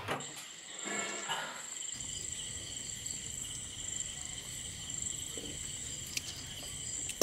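Crickets chirping in a steady chorus of high, even tones.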